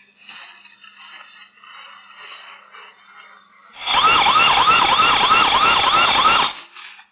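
Security camera's intruder-deterrent alarm siren going off: a loud electronic warble of quick rising-and-falling sweeps, about three a second. It starts about four seconds in and cuts off suddenly under three seconds later, set off by a detected intruder.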